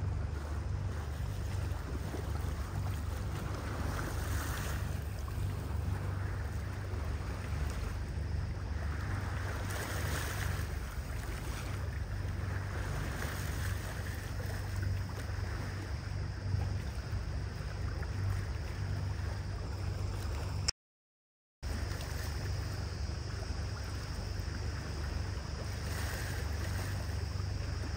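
Motor boat under way: a steady low engine drone, with water rushing past the hull in swells and wind on the microphone. The sound cuts out completely for under a second about three quarters of the way in.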